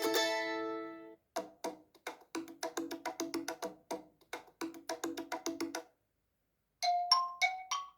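iPhone 4S built-in ringtones. A plucked-string ringtone fades out, then a ringtone of quick wood-block-like percussion plays a rhythmic pattern for about four seconds. It stops, and after a second of silence a ringtone of fast, bell-like notes alternating between two pitches begins near the end.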